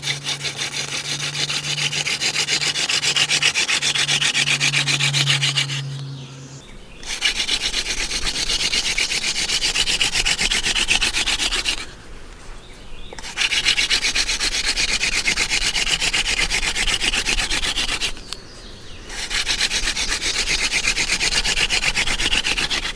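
Yucca spindle of a hand-drill friction fire spun back and forth between the palms in a yucca hearth board, its tip grinding with a dry, finely pulsing rubbing that stops briefly three times. This is the gentle opening stage, drilling at low pressure and speed to fill the notch with dark brown wood dust, with a little smoke starting.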